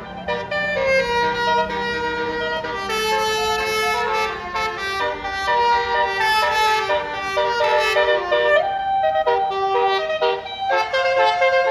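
Basuri telolet horn on a bus playing a melody: several air trumpets sounding together in quick stepped notes, with a low bus engine hum underneath at first.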